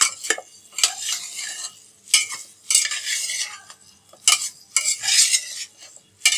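A spatula scraping and knocking against an aluminium pot in repeated strokes about a second apart as chicken drumsticks are tossed in a thick sauce, which sizzles faintly on low heat.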